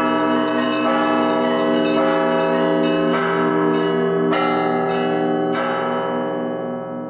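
Old Russian church bells of a museum belfry ensemble rung together in a Russian-style zvon. Smaller bells are struck about once a second over the steady, pulsing hum of the larger bells. The last strike falls near the end and the ringing then dies away.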